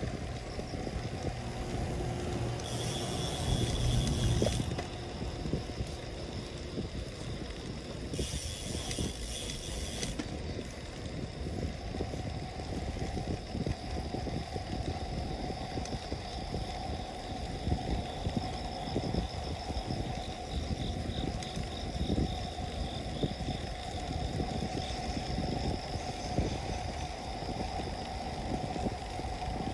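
A Buddy P40 being ridden along a paved road: steady road rumble with small rattles over the surface and a steady high whine, with two short stretches of hiss about three and eight seconds in.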